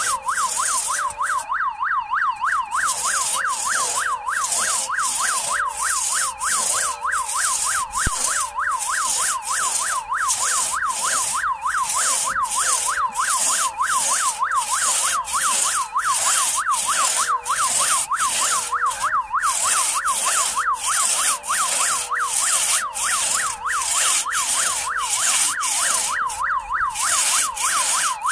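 Large crosscut hand saw rasping through a log in steady back-and-forth strokes, a little over one a second, with a brief pause about two seconds in. Throughout, a warbling siren-like tone rises and falls several times a second.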